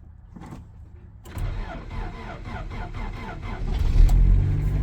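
1990 Honda Civic engine cranking on its starter, powered from a jump pack, for about two and a half seconds. It then catches with a brief rev near the end and settles into a steady idle, starting right up.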